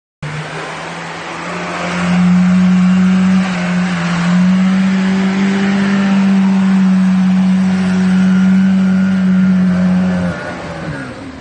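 4x4's engine held at high revs as it powers through deep mud with its wheels spinning. The pitch steps up about two seconds in, holds steady, then falls away near the end as the revs drop.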